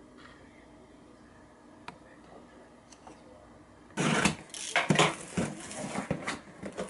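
A few faint clinks of utensils on dishes, then about four seconds in a cardboard parcel box is handled and opened: a loud burst of rustling, scraping cardboard with sharp knocks.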